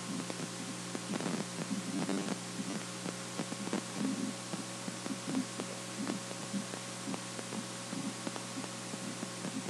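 Steady low electrical hum, with faint irregular clicks and ticks scattered through it.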